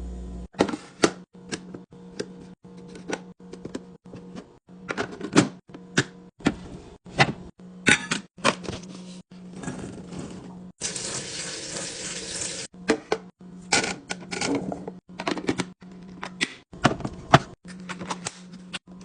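A quick run of sharp taps, clicks and knocks from food containers and bottles being handled and set down while a fridge is restocked, cut into short snippets. About eleven seconds in, a steady hiss lasts nearly two seconds.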